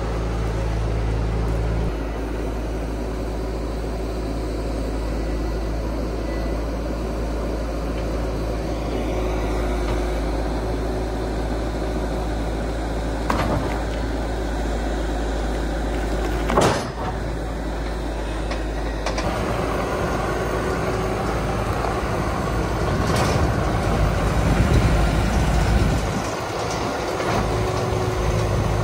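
Bobcat T300 compact track loader's diesel engine running as it works, carrying logs on its forks, with a few short knocks; the loudest knock comes a little past halfway.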